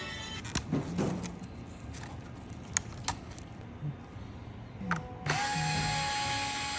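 A few scattered clicks and taps, then about five seconds in the Viomi V3 robot vacuum's suction fan motor starts. It rises quickly to a steady high whine with a rush of air and cuts off near the end.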